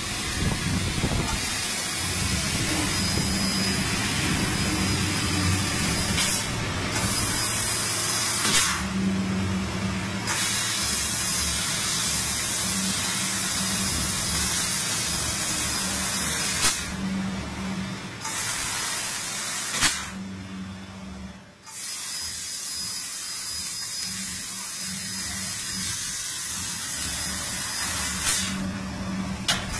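CNC fiber laser tube cutter cutting 1 mm stainless steel pipe: a steady loud hiss from the cutting head that stops briefly several times between cuts, over a low machine hum.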